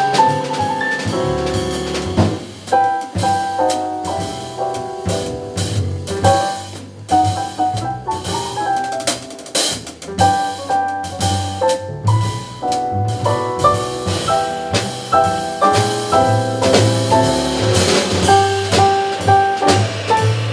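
Jazz piano trio playing live: a stage keyboard with a piano sound playing chords and melodic lines, an upright double bass walking underneath, and a drum kit keeping time with frequent cymbal and drum strokes.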